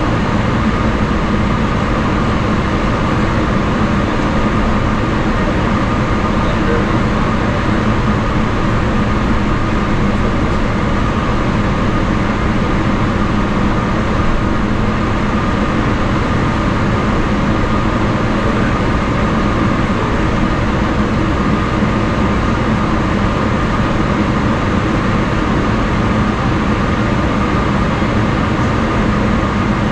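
Steady cabin noise of a Boeing 777-300ER taxiing with its GE90-115B turbofans at idle, heard from inside the cabin: an even rumble with a constant low hum and a steady mid-pitched tone.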